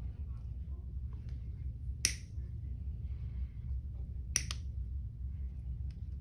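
English anvil nail splitter clipping through a toenail's ingrown edge: a sharp click about two seconds in and a quick double click a little past four seconds, with faint ticks between, over a low steady hum.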